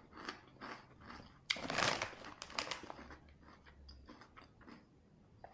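A person biting into and chewing crunchy cucumber: a loud crunchy bite about a second and a half in, then quieter chewing.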